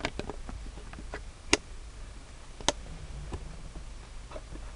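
Scattered light clicks and taps of plastic armrest trim being handled and fitted into a car's centre console. Two sharper clicks come about a second and a half and two and a half seconds in, over a low background hum.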